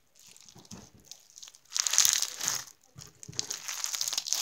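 Slushy slime being squeezed and worked by hand, crackling and crunching. It is faint for the first second and a half, loudest about two seconds in, then goes on as a steady crackle.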